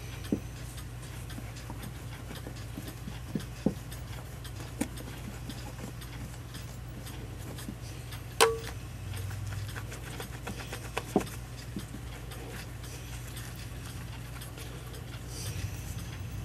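Small brass clock-movement parts and tools handled on a cloth-covered workbench: scattered irregular clicks and taps, the loudest about eight seconds in with a brief metallic ring, over a steady low hum.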